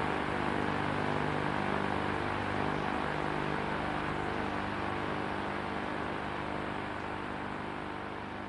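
Steady hiss with a low electrical hum from an old videotape soundtrack, slowly fading out toward the end.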